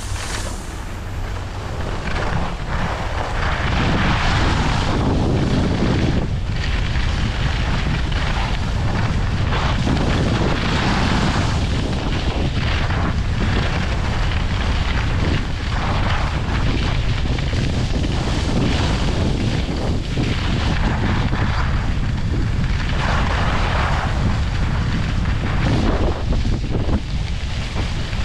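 Wind buffeting the microphone of a skier's camera as a steady low rumble, with the hiss of skis sliding on packed snow swelling and fading every couple of seconds as the skier turns.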